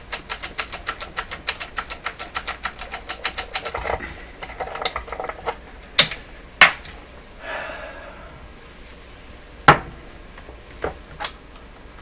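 A quick, even run of small hard mechanical clicks, about eight a second for nearly four seconds, made while cleaning a vintage radio's push-button switches with spray contact cleaner. Then come a few scattered louder single clicks, the loudest about ten seconds in.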